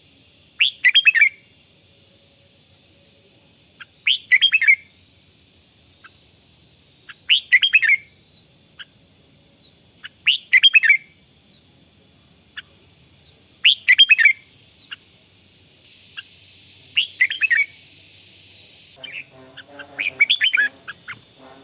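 Red-whiskered bulbul singing short chirpy phrases that fall in pitch, one about every three seconds, seven times, over a steady high thin tone. Near the end a lower sound with several pitches comes in.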